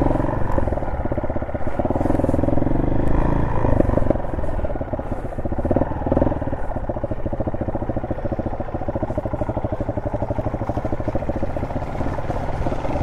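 Honda SL230's single-cylinder four-stroke engine running at low revs, the pitch rising and falling as the throttle is worked in the first few seconds, then steadier.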